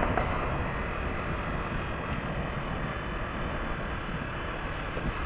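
Motorcycle engine running steadily while riding at road speed, heard from the saddle, blended with a steady rush of wind and road noise.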